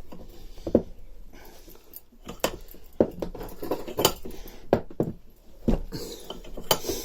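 Bench vise being wound tight, with irregular metallic clinks and knocks about once a second, as it presses a new roller bearing home into a mower gearbox casing.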